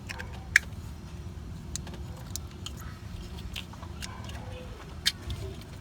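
Scattered sharp metallic clicks and clinks of tools and parts being handled, with two loud clicks about half a second in and near the end, over a steady low rumble.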